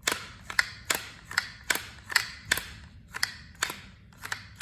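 Ruger 10/22 rifle's bolt being worked back and forth by hand, a series of about a dozen sharp mechanical clicks, two or three a second. The bolt stops against a replacement buffer fitted in place of the rubber bumper, so there is no metal-to-metal clank.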